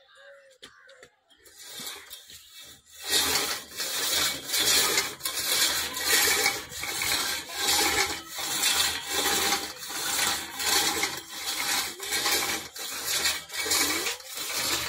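Homemade pulldown machine in use: rhythmic scraping and rubbing as the concrete weight plates on their pipe ride up and down the steel pipe guides and the rope runs over the frame, rising and falling with each repetition. It starts about three seconds in.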